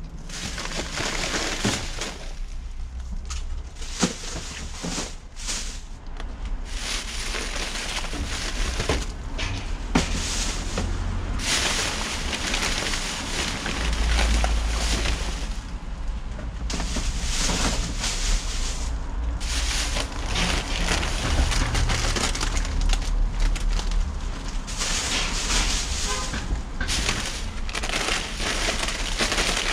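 Plastic bags, paper and packaged goods rustling and crinkling in irregular bursts as hands rummage through trash in a metal dumpster, with a few sharp clicks and a low rumble underneath.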